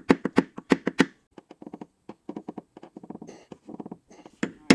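Metal tool tapping on a car body panel during paintless dent repair: a quick run of sharp taps, about four a second, then lighter rapid ticking, then two harder strikes near the end.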